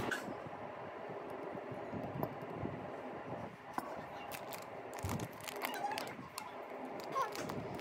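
Light clicks and knocks of kitchenware being handled on a table, against a low room hum, with a few faint short squeaky calls near the end.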